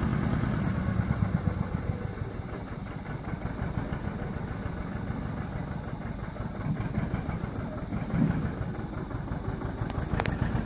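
Farm tractor's engine running steadily under load while driving a three-point PTO finish mower through tall grass.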